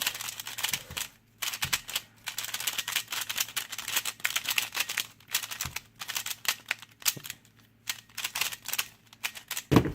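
Cubing Classroom ball-bearing pyraminx being turned quickly by hand: a fast, uneven run of plastic clicks and rattles, pausing briefly about a second in and again near the end. The clicks are really strong and the puzzle is tight and dry, which the owner takes as a sign that it needs loosening and lubricating.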